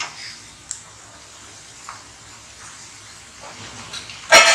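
Murukku deep-frying in hot oil in a stainless steel kadai: a steady sizzle with a couple of light taps. Near the end comes one loud, ringing metal clang from the metal utensils.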